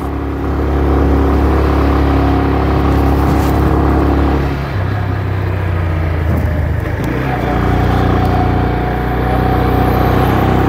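Motorcycle engine running on the move, with road and wind noise. The engine note drops about four and a half seconds in and picks up again around seven seconds, and a bus passes close alongside near the end.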